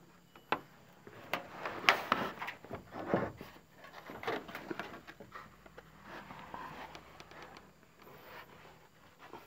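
Irregular knocks, bumps and scuffs on wooden boards as a person clambers down from a low ceiling space without a ladder. The sharpest knocks come in the first three seconds, then softer rustling.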